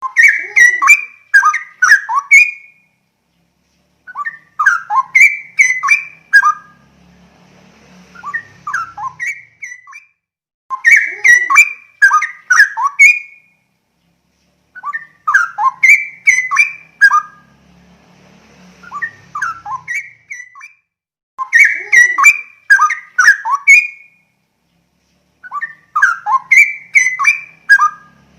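Straw-headed bulbul (cucak rowo) singing: loud, rich whistled phrases about two seconds long, repeated every four to six seconds, with softer, shorter phrases in some of the gaps.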